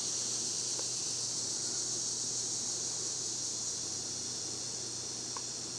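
Steady faint electrical hum with a high hiss over it and a couple of faint ticks, slowly easing down.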